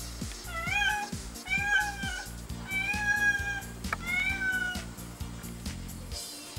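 Domestic cat meowing four times, each call rising then falling in pitch: a cat stuck up a tree, unable to get down. Background music with a steady beat plays under it.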